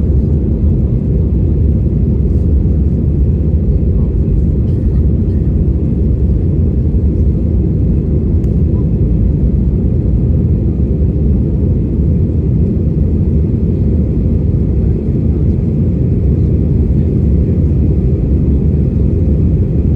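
Steady low rumble of an airliner's engines and airflow during take-off, holding an even level throughout.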